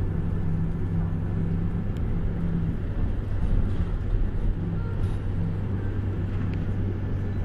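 A bus's engine and road noise heard from inside the cabin while it drives, a steady low drone.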